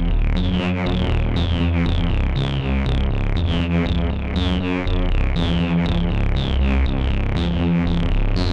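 Dreadbox Erebus v3 analog synthesizer playing a short repeating sequence of plucky notes, about three a second, each note's brightness sweeping down as the filter closes, over a low bass line that steps between pitches.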